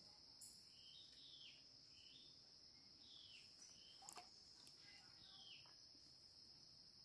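Faint forest ambience: a steady high-pitched insect drone, with a bird repeating short falling calls about once a second.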